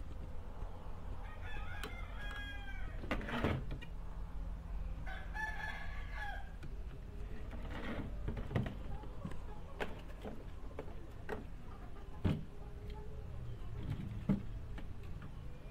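A rooster crowing twice, each crow about a second and a half long, about a second in and about five seconds in. Several sharp knocks and clicks from a circuit board and tools being handled on a wooden workbench, over a steady low hum.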